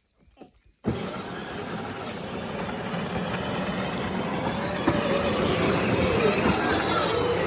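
A Power Wheels ride-on Jeep drives over snow, its small electric motors and gearboxes whirring. Its 12-volt drive is running on an 18-volt battery. The sound starts abruptly about a second in, grows a little louder as the Jeep comes closer, and cuts off sharply at the end.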